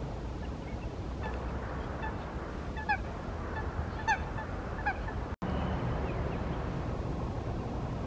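A waterbird giving three short honking calls about a second apart, over a steady low outdoor rumble.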